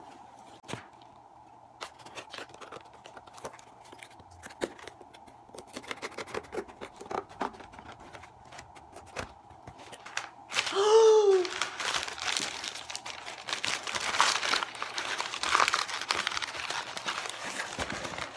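Cardboard shipping box being pulled open, with crumpled kraft-paper packing rustling and tearing. It starts as scattered clicks and scrapes and grows into a loud, steady crinkling and ripping in the second half. About ten seconds in there is a short rising-then-falling vocal sound.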